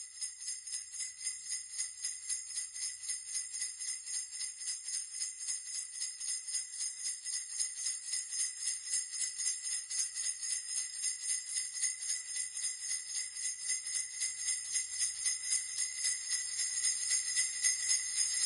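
Sleigh bells shaken in a steady rhythm, about two to three shakes a second, growing gradually louder.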